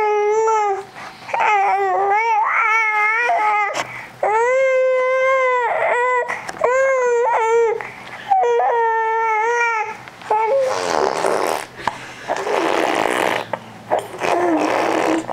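Baby making a run of loud, high-pitched squealing calls, each held for a second or two, one after another. From about ten seconds in, the noises turn rougher and breathier.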